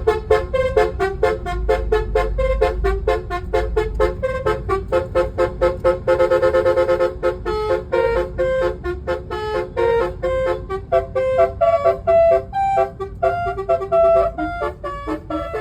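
Basuri multi-tone musical car horn (telolet horn) playing quick melodic runs of short notes, with a fast trill of repeated notes about six seconds in. A steady low rumble runs underneath.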